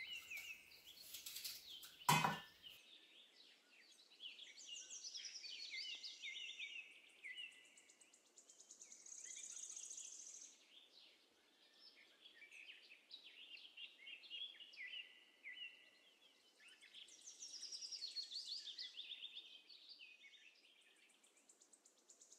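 A songbird singing in repeated bouts of quick chirping phrases and high trills. There is a single sharp knock about two seconds in.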